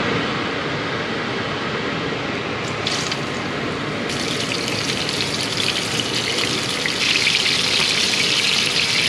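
Mahi-mahi fillets laid into a hot frying pan and sizzling, over a steady rushing background noise. The sizzle starts about three seconds in and gets louder about seven seconds in, as more fillets go into the pan.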